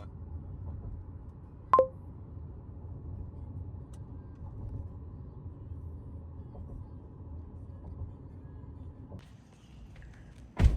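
Steady low rumble of a car on the move, heard from inside the cabin. A short two-tone beep sounds about two seconds in, and a sharp knock comes near the end.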